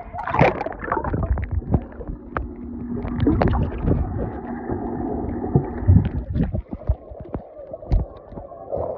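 Pool water splashing and churning right at a phone's microphone as a person swims, sounding muffled and bubbly while the phone is underwater, with a steady low hum through the middle.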